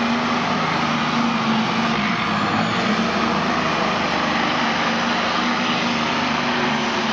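Unlimited modified pulling tractor running flat out as it drags the sled down the track. The loud engine noise holds steady in level and pitch throughout.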